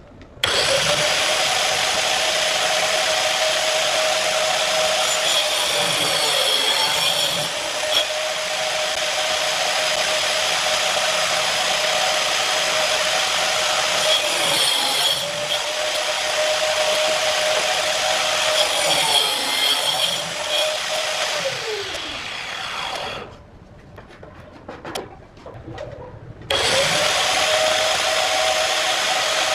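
Angle grinder working wood, its motor whine dipping briefly under load a few times. It winds down with a falling pitch about two thirds of the way through, then starts up again near the end.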